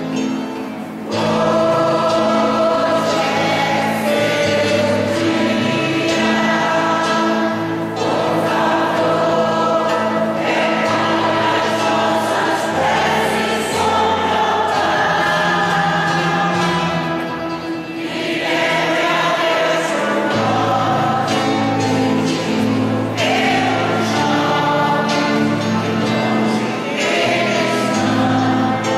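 Choir singing a Christian hymn in long, sustained phrases, with short breaks between phrases.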